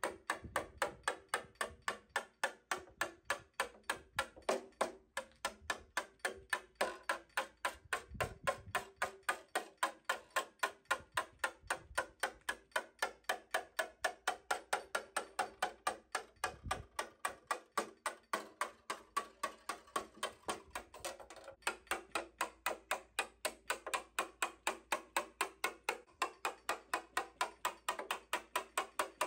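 Hammer driving a steel chisel into the sealed bottom seam of a BMW E30 Touring tailgate, splitting the two sheet-steel layers apart. Quick, steady metallic taps, about three to four a second, with a short pause about three quarters of the way through.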